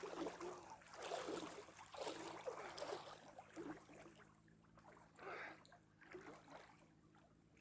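Faint, irregular sloshing and splashing of lake water as a person wades and moves about in it. The sounds thin out after about four seconds.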